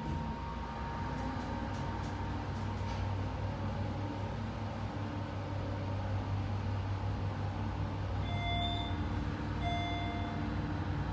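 KONE elevator car travelling upward with a steady low hum of the running lift. Near the end, two short electronic chime tones about a second and a half apart as the car arrives at the street floor.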